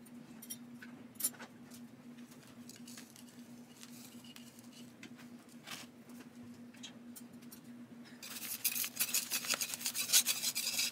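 Faint clicks and rustles of a terracotta pot and its pumice top dressing being handled. About eight seconds in, these give way to a flat metal blade scraping and grating round the inside of the terracotta pot, working a root-bound monkey tail cactus loose.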